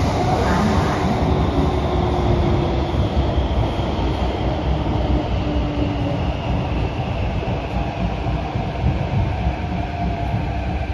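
Inside a Kawasaki & CRRC Sifang CT251 metro train: a steady low rumble of wheels on rail, with an electric whine that falls slowly in pitch as the train slows into a station.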